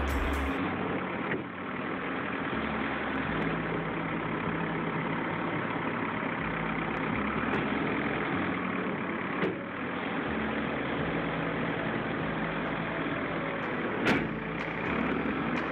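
Heavy machine engine running steadily, with a few sharp knocks, the loudest near the end.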